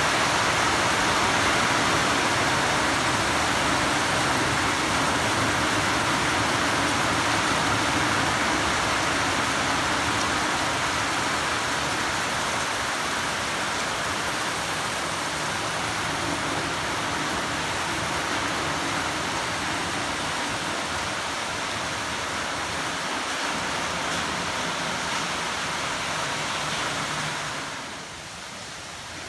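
Heavy monsoon rain pouring steadily onto trees and foliage, a dense even hiss. It falls to a lighter level near the end.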